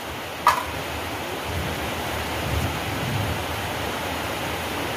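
Steady rain, an even hiss with no break, with one sharp click about half a second in.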